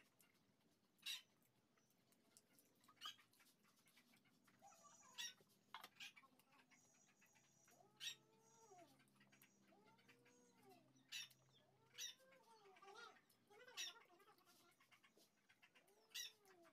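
Faint animal calls, each rising and then falling in pitch, repeated several times in the second half, with sharp clicks every couple of seconds.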